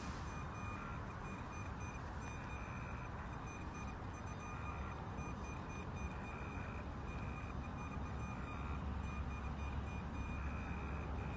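Meade ETX 80 telescope's drive motors running faintly while it tracks: a thin steady whine with small breaks, over a low rumble that grows a little stronger near the end.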